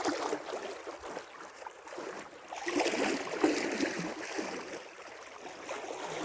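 Lake water splashing and sloshing as a person wades in, with irregular splashes that grow louder in the middle.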